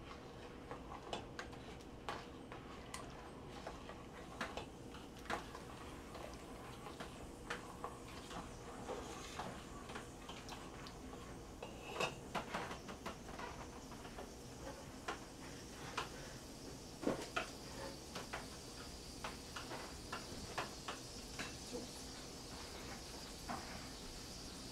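Kitchen utensils and dishes clinking: scattered light clicks and taps of a spoon and pans, with a few louder clinks about halfway and two-thirds through, over a faint steady hum.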